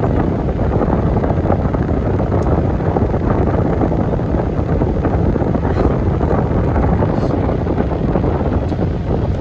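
Steady low road and wind noise inside a moving car's cabin, a constant rumble with no change in level.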